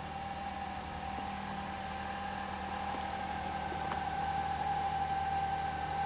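A steady mechanical hum with a constant high whine over it, growing slightly louder.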